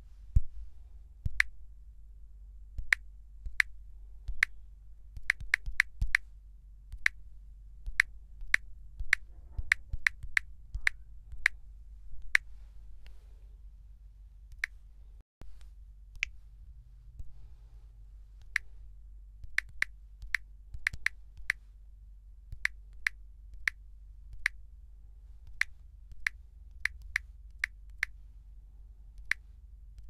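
Smartphone dial-pad key sounds: a short, sharp click for each digit tapped, dozens of them in quick uneven runs, with a pause of a few seconds about halfway through.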